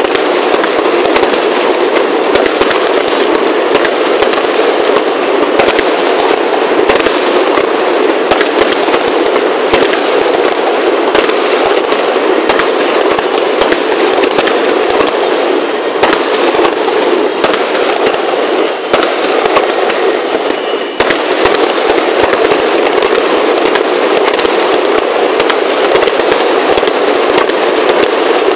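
Fireworks going off in a loud, continuous barrage of rapid bangs and crackles, with no break between them.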